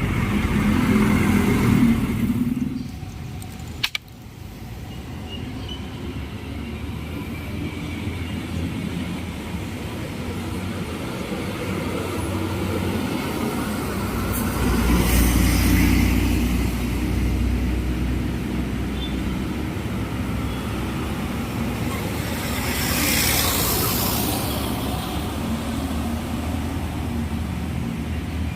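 Diesel engines of Mercedes-Benz 1626 tour buses running as the buses pass in convoy, the rumble swelling about halfway through. A hiss comes near the end.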